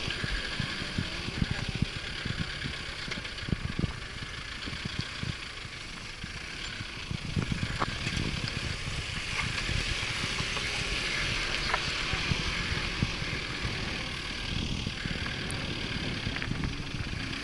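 4x4 vehicle driving on a rough off-road mountain track: the engine runs steadily under tyre noise, with frequent short knocks and jolts from the bumps.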